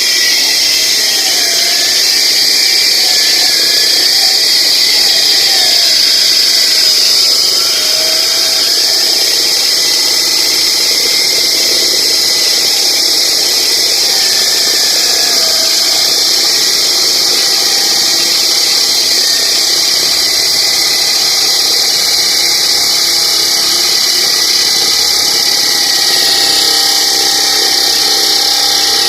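Concrete-cutting power saw running at full speed with a steady high whine, its pitch sagging briefly now and then as the blade bites into the concrete.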